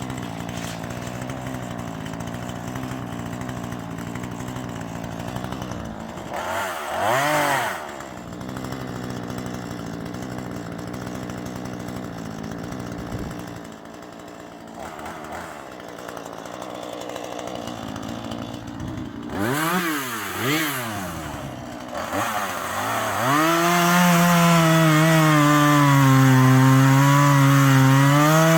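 Husqvarna 440e two-stroke chainsaw idling, blipped up to high revs and back about a quarter of the way in and twice in quick succession about two-thirds through. Near the end it is held at full throttle, louder, its pitch sagging and recovering as it cuts into wood.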